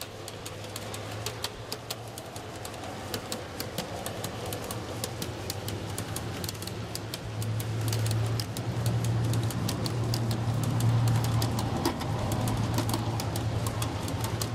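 G-scale model freight train rolling past on steel wheels: a steady low rumble with rapid clicking of the wheels over the rail joints, the rumble swelling louder about halfway through.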